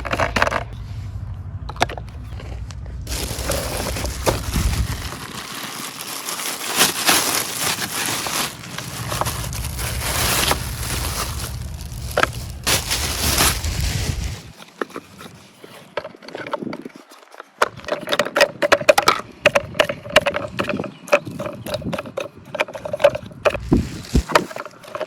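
Packaging being handled while a die-cast model tractor is unboxed: steady scraping and rustling for about ten seconds, then a run of short clicks and taps.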